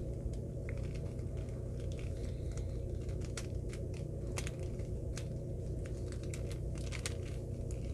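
Scattered small plastic clicks of a MoYu GEO Cube's layers being turned by hand, coming more often after the first few seconds, over a steady low hum.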